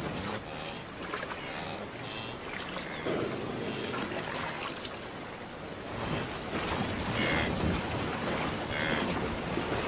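Water splashing and churning as a herd of wildebeest plunges into and wades through a river, a steady rushing that grows louder about six seconds in.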